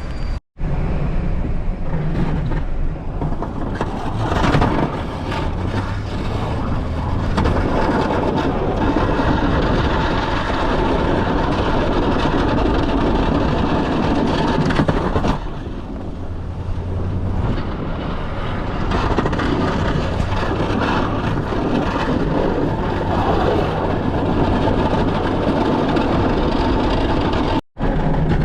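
Engine of a snow-clearing machine running steadily, with a loud rushing noise over a low hum.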